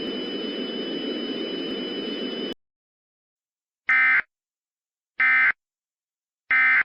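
Steady broadcast hiss with a thin high tone cuts off abruptly about two and a half seconds in. It is followed by three identical short, raspy Emergency Alert System data bursts about a second and a quarter apart. These are the SAME end-of-message tones that close the alert.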